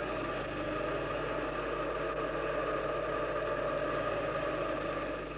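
An engine running steadily, a constant drone with no change in speed.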